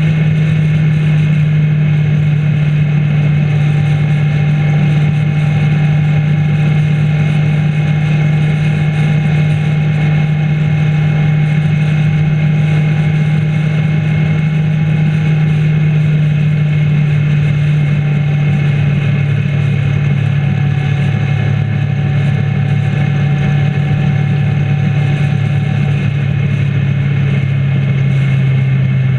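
Motorcycle engine running steadily at cruising speed, with a constant rushing noise over it; the engine note drops slightly near the end.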